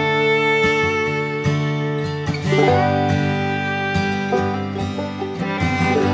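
Background music: a country/bluegrass-style tune led by acoustic guitar and other plucked strings.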